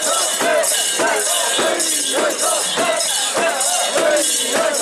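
Mikoshi bearers shouting a rhythmic chant together while the portable shrine's metal fittings and rings jangle with each heave, about twice a second.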